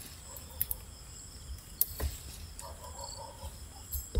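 Male papaya flower stalks snapping off by hand, a few sharp clicks with light rustling of the plant, over the steady chirring of night insects.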